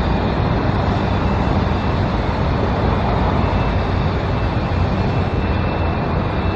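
Steady road-traffic noise, a continuous even rumble with no distinct events.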